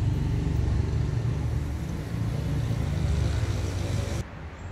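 A motor vehicle's engine running close by, a steady low rumble that cuts off abruptly near the end.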